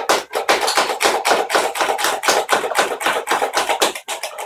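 Nerf Modulus flywheel dart blaster firing semi-automatically in rapid succession. It gives a quick, even string of sharp clacks, about four to five shots a second, which thins out near the end.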